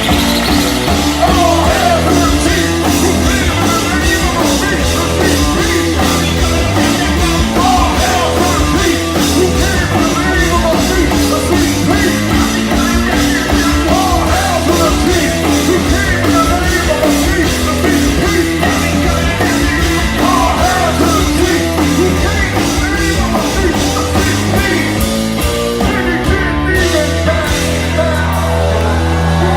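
Rap-rock band playing live: heavy rock backing with a steady bass line under shouted, rapped vocals. Near the end the music thins to a held low note for a moment before the full band comes back in.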